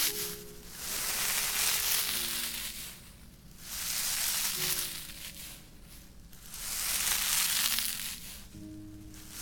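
Close-miked ASMR trigger sounds: objects handled and rubbed against a binaural microphone, giving a crackly hiss that swells and fades in about four long strokes. Faint background music runs underneath.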